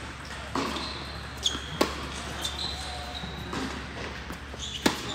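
Tennis rally on an indoor hard court: about five sharp pops of rackets striking the ball and the ball bouncing, with short high squeaks of players' shoes between them, echoing in the hall.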